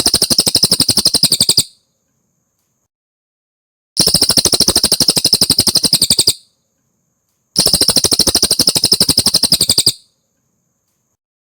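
Cililin song: a rapid, even trill of sharp chip notes, high-pitched and loud, given three times in bursts of about two seconds with silent gaps between, the same phrase repeated as a masteran loop.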